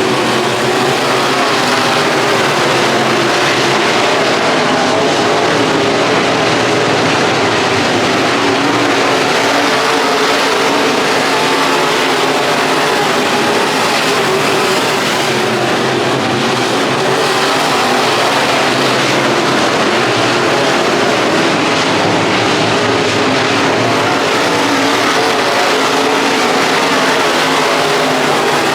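Dirt-track race car engine running hard at racing speed: a loud, steady drone whose pitch holds with only slight rises and falls.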